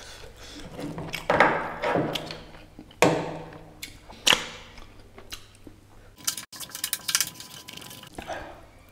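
Close-miked wet eating sounds from a meal of mutton nalli curry and rice eaten by hand: fingers squishing rice into curry, several loud sharp wet bites about a second, three seconds and four seconds in, then rapid fine wet clicking of chewing and fingers near the end.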